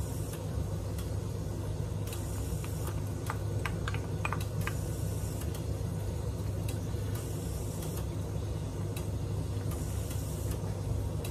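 A wooden spoon stirring noodle soup in a pan, with a few light taps against the pan a few seconds in, over a steady low hum.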